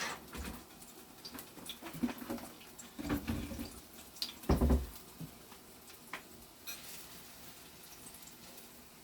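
Kitchen handling sounds: scattered light clicks and knocks, with two louder thumps about three and four and a half seconds in and a short hiss near seven seconds.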